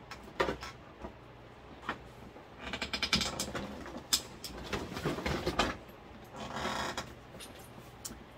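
Packaging rustling and crinkling in irregular bursts, with a few sharp knocks, as the next item is handled.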